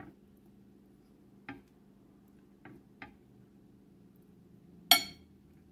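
Metal fork tapping on a ceramic plate: a few light clicks, then one louder, ringing clink about five seconds in, over a faint steady hum.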